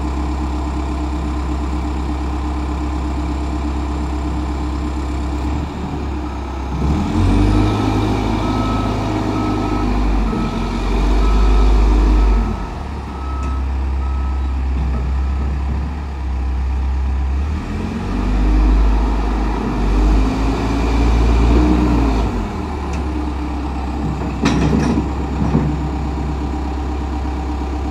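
Lull 944E-42 telehandler's diesel engine idling, then revving up and settling twice as the machine is driven, with its reversing alarm beeping in evenly spaced beeps during the first rev-up. A couple of sharp knocks come near the end before the engine drops back to idle.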